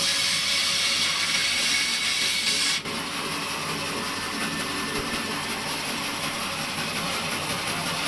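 Band saw cutting through a thick stack of corrugated cardboard air-cooler pads: a steady hissing, rasping noise. About three seconds in the level drops suddenly as the cut ends, and the saw runs on more quietly.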